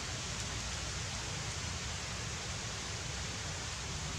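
Steady outdoor background noise: an even rushing hiss over a low rumble, with no distinct events.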